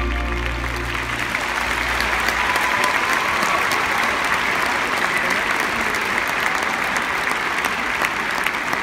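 Large arena crowd applauding steadily, while the last low note of the music fades away over the first two seconds.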